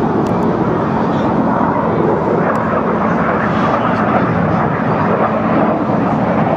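BAE Hawk T1 jets, each powered by a single Adour turbofan, flying a display: a loud, steady rushing jet noise with no clear rise or fall.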